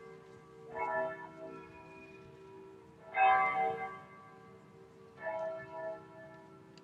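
Church bells ringing for Easter Sunday. A bell strikes about every two seconds, its low hum carrying on between the strokes.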